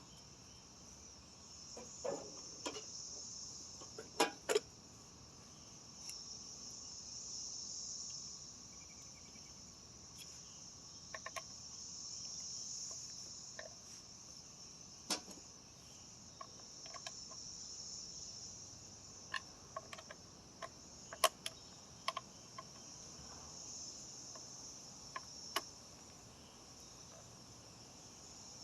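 Steady, high chorus of insects that swells and fades in slow waves, with scattered faint clicks and knocks.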